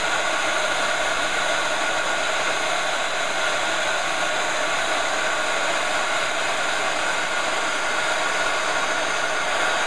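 Handheld embossing heat gun running steadily: an even rush of blown air with a faint steady motor whine.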